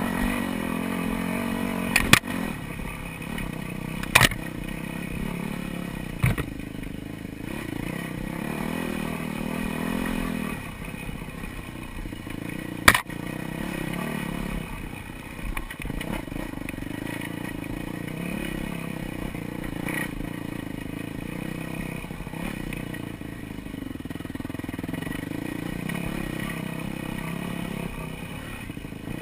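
Dirt bike engine being ridden on a rough trail, its revs rising and falling with the throttle. Sharp knocks and clatter from the bike striking bumps come about 2, 4 and 6 seconds in, and the loudest about 13 seconds in.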